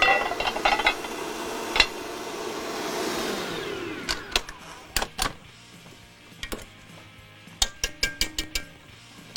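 Electric stand mixer running, then winding down as it is switched off about three and a half seconds in. After that a spatula knocks and scrapes against the steel mixing bowl, with a quick run of taps near the end.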